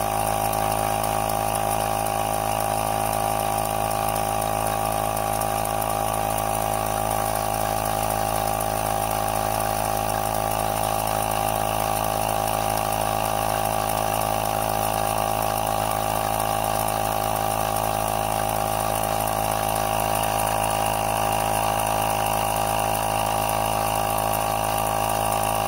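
Air pump running with a steady, even hum, supplying air pressure in place of boiler steam to drive a cutaway model steam locomotive's piston and valve gear.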